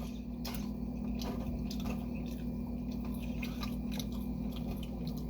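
A person chewing food close to the microphone, with irregular wet mouth clicks and smacks over a steady low hum.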